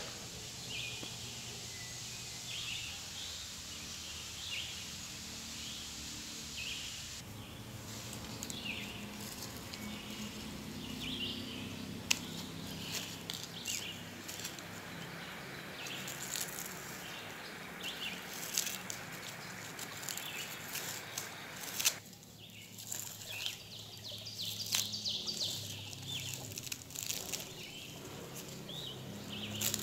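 Clear plastic wrap crinkling and crackling as it is peeled off by hand, in many short irregular crackles. Small birds chirp in the background, most clearly in the first several seconds before the crinkling starts.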